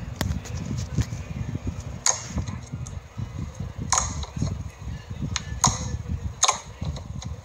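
Clear slime being pressed and poked by hand, with four sharp pops spread through over low sticky handling noise.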